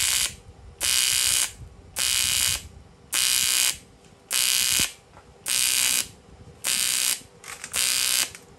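AC TIG welding arc on an aluminium radiator, buzzing in even bursts of just over half a second about once a second as the arc is struck and stopped, eight times in all.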